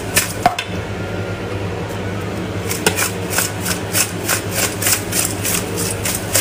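Raw whole prawns being shaken and rubbed with coarse salt in an enamel bowl to clean them. From about three seconds in, a rhythmic scratchy swish comes about four to five times a second, over a steady low hum.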